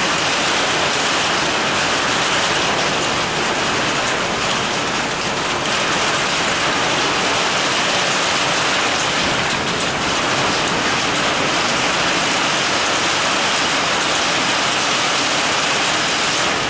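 Heavy rain pouring down steadily and loudly, falling on a metal shed roof overhead and on the yard around it.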